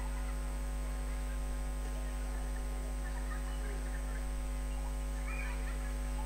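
Steady electrical mains hum with a low buzz in the recording, unchanging throughout. A few faint, short wavering sounds rise above it in the middle and again just before the end.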